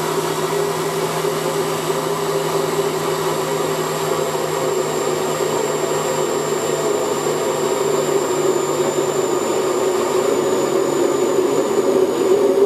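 SilverCrest jug blender running steadily with a steady whine, blending a thick tomato-and-bread purée while olive oil is poured in a thin stream through the lid to emulsify it.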